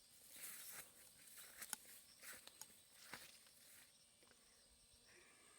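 Faint rustling of plants in three short bursts, with a few sharp snaps mixed in.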